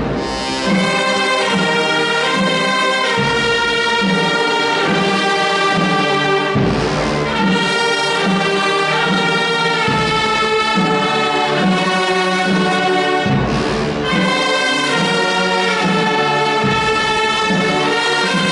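Wind band of flutes, clarinets, trumpets, trombones and other brass playing a piece of Passion music in long held chords.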